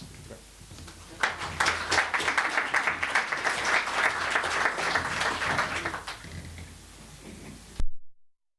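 Audience applauding, a dense patter of clapping starting about a second in and dying away after about five seconds. A short loud thump near the end, then the sound cuts out to dead silence.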